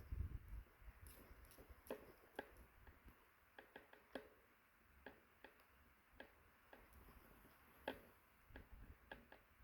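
Faint, irregular sharp clicks and crackles, a few a second, over a quiet hiss, with a brief low rumble at the start.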